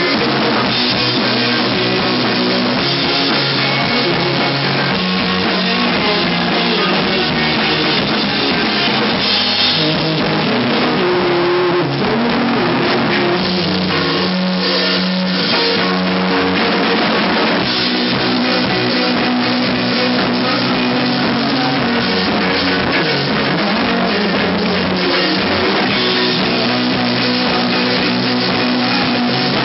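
Live rock band playing loudly and without a break: a drum kit with cymbals and amplified electric guitars, in a poor-quality recording.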